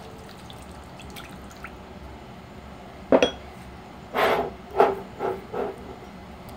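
Utensil knocking and clinking against a glass mixing bowl of salad dressing. There is one sharp, ringing clink about three seconds in, then a quick run of four or five softer knocks over the next two seconds.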